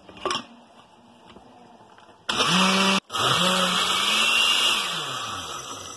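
Oster glass-jar blender switched on about two seconds in, grinding almonds, cashews, fried onions, saffron and cream into a thick paste. It cuts out for an instant and starts again, then runs on with its motor pitch and level sagging toward the end.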